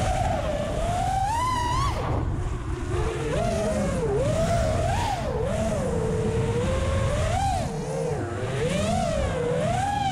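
The brushless motors of an FPV freestyle quadcopter, Newbeedrone Smoov ring-magnet motors, whining as the pitch rises and falls over and over with throttle changes, with a sharp dip about two seconds in. Heard from the onboard camera, with wind rumble underneath.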